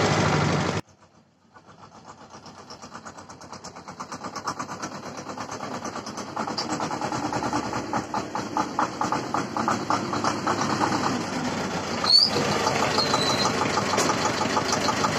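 T-25 tractor's two-cylinder air-cooled diesel engine running. It cuts off suddenly about a second in, then fades back in with an even chugging that grows steadily louder as the tractor drives up close. A single sharp clank and a brief high squeak come near the end.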